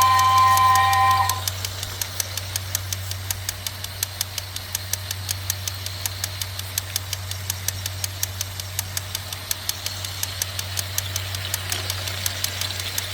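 A homemade toy train's small DC motor running, with a steady low hum and rapid, evenly spaced clicking as the train rolls along. Music ends about a second in.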